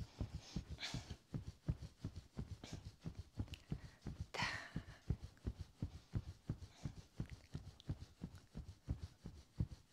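Fingertips rubbing and patting up and down over a T-shirt on the upper chest and stomach: a quick, steady rhythm of soft low thuds, about three or four a second. A short breath is heard about four seconds in.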